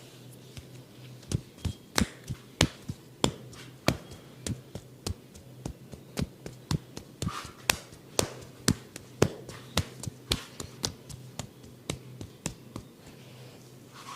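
Hands tapping and slapping in a percussive massage: a quick, uneven series of sharp strikes, about two or three a second, starting about a second in and stopping near the end.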